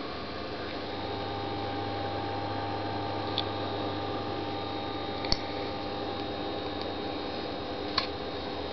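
Steady low electrical hum with a few held tones, broken by three or four short, sharp clicks.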